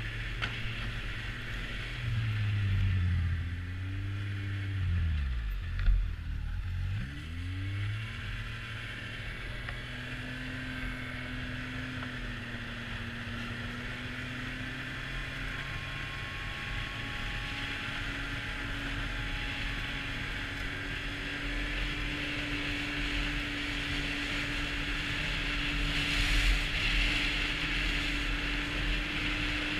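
Arctic Cat four-stroke snowmobile engine running on a trail: its pitch rises and falls several times over the first eight seconds or so, then holds a steady, slowly climbing tone at cruising speed over a continuous hiss.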